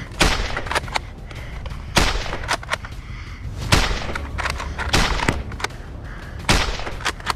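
Sharp clacks of foam-dart blasters firing and darts striking: five loud hits a second or two apart, with softer clicks between them.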